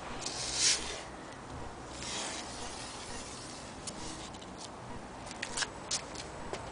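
Handling noise: two brief rustling rubs, then a few scattered light clicks.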